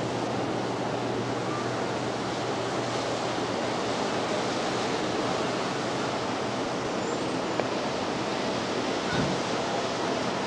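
Ocean surf washing onto a beach: a steady, even rush, picked up by a camcorder microphone from above the shore. There is a brief low bump a little after nine seconds.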